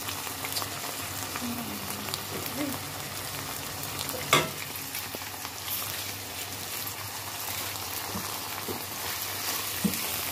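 Rice and chunks sizzling in hot oil in a pan while being stirred with a metal slotted spoon, with small scraping ticks. A single sharp clink of the spoon against the pan comes about four seconds in.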